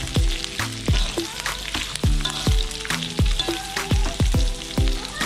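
Beef, onion and bell pepper sizzling in oil in a wok while a spatula stirs and tosses them, over background music with a steady beat.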